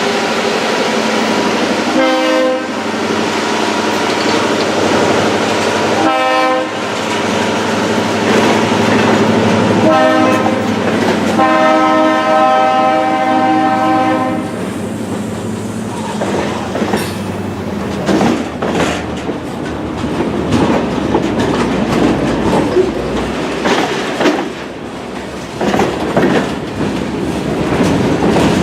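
Diesel locomotive sounding its horn for the grade crossing: three short blasts, then a long one, followed by the train rolling past with the wheels clicking over the rail joints.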